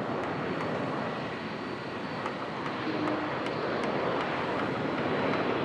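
Gulfstream G500 business jet's twin turbofans running, a steady rushing roar with a faint high whine, swelling slightly toward the end.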